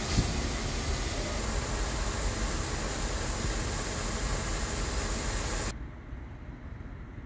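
Steam hissing steadily and loudly from beneath an Ol49 steam locomotive. It cuts off abruptly near the end, leaving a quieter low background.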